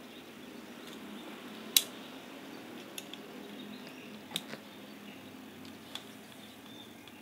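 Clicks and taps of small spinning-reel parts and tools being handled during disassembly: one sharp, loud click a little under two seconds in, then four lighter ones spread over the following seconds.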